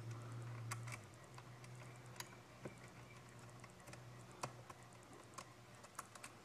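Scattered light clicks and ticks at irregular intervals as a chainsaw's chain and bar are handled and worked onto the saw, over a low steady hum that drops away about a second in.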